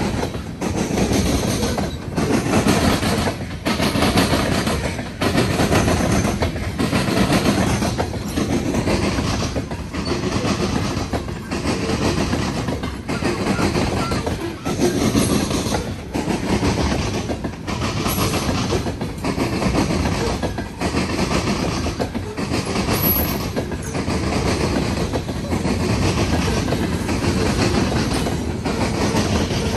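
Norfolk Southern freight train's cars rolling past close by, wheels clattering on the rails. The sound rises and falls in a regular beat a little more than once a second.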